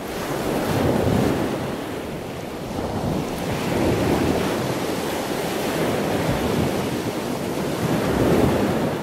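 Ocean surf: a rushing of waves that swells and ebbs, peaking about a second in, again around four seconds, and near the end.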